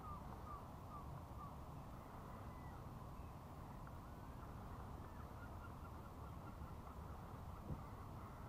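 Faint series of short, falling bird calls, about three a second, clear for the first second or two and then fainter, over a low steady rumble.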